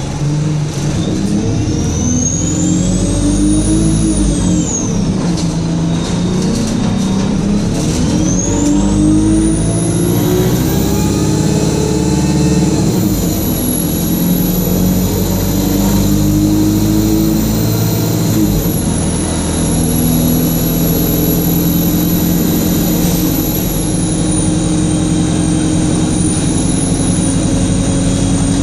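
Diesel bus engine pulling away under load, with a loud high-pitched turbocharger whine that climbs with the revs. The whine rises briefly and drops about four seconds in, then climbs again, holds high for several seconds, and slowly falls near the end.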